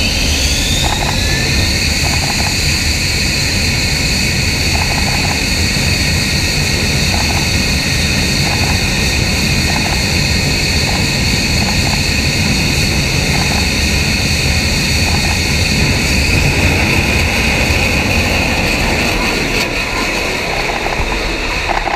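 F-35B's F135 jet engine and lift fan running at high power for a short takeoff: a loud, steady jet roar with a high whine that rises in pitch during the first second and then holds. The jet starts its takeoff roll near the end.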